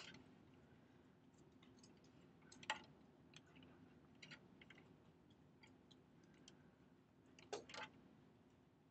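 Near silence with faint scattered clicks and taps, the loudest about three seconds in and a close pair near the end, over a faint steady low hum.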